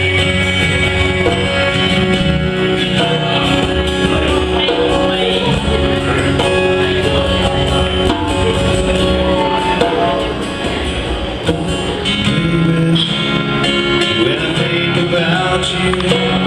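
Live band playing a country-style song with electric guitar, bass and drums, loud and steady.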